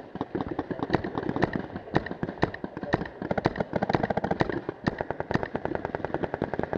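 Paintball markers firing rapidly: a dense string of sharp pops, several shots a second, starting abruptly. The string includes close shots from a magazine-fed RAP4 468 marker.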